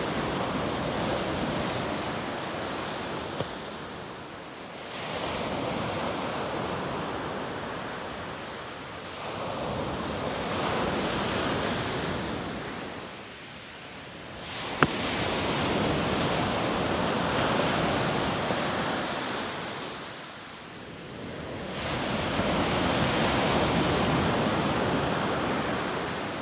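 Surf breaking on a pebble beach, the rush of the waves swelling and easing about every five seconds. A brief sharp click is heard about 15 seconds in.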